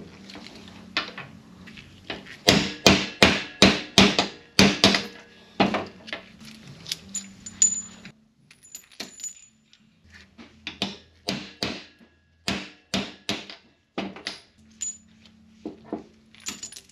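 Sharp metal-on-metal hammer strikes on a socket used as a drift, beating the needle bearings out of roller rocker arms held in a bench vise. A quick run of about three strikes a second comes a couple of seconds in, then scattered single knocks and a few ringing metal clinks.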